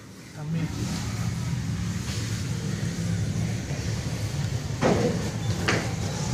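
Motorcycle engines running in the street below, with two sharp bangs less than a second apart near the end.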